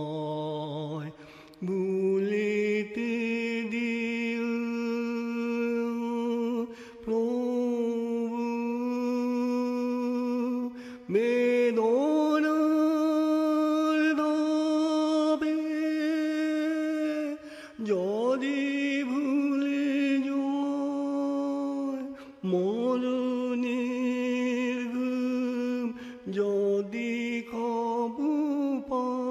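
Slow Bengali devotional song: one voice holding long, drawn-out notes with a light waver, sliding up into each new phrase, with brief pauses for breath every four to six seconds.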